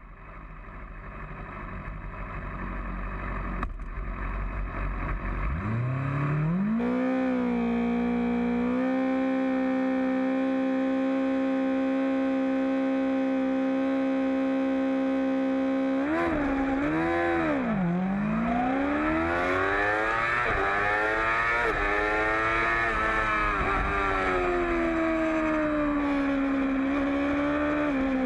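2008 Yamaha R6 inline-four race engine heard from on board. The revs climb about five seconds in and are held at one steady high pitch for about ten seconds at the start line. It then launches, with the pitch rising and dropping again and again as it accelerates through the gears.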